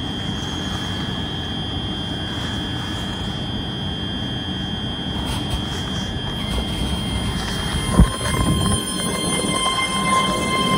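ScotRail Class 385 electric multiple unit at the platform, with a steady hum and a high whine from its running equipment. About eight seconds in comes a short thump, and a steady electric whine sets in as the train starts to pull away.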